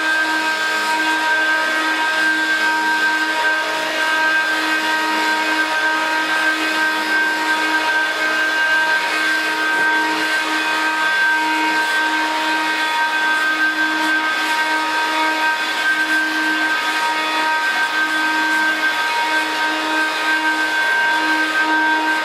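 Hoover Dial-A-Matic Model 1140 upright vacuum cleaner, made around 1972, running steadily: a steady whine over a rush of air.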